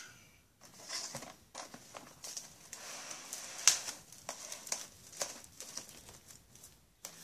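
Plastic cling wrap being pulled out and pressed onto a cutting mat, crinkling and rustling in irregular bursts with a few sharper crackles.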